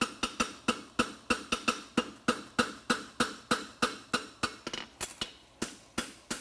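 Farrier's hand hammer striking a steel horseshoe bar on an anvil in a steady rhythm of about three blows a second, each with a short metallic ring, as the branch of a French hind shoe is forged out toward the quarter. About three-quarters of the way in the rhythm briefly changes to lighter, quicker taps between the heavier blows.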